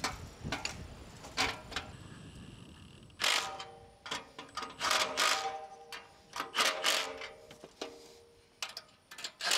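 Irregular clicks and metallic clanks from tools and metal ground-mount rails while the mount is being bolted to a concrete block with concrete anchors. The louder hits ring briefly.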